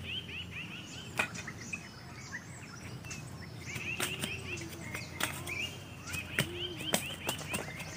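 Machete blade cutting into a bamboo pole: several sharp, irregularly spaced knocks. Birds chirp in quick repeated phrases throughout.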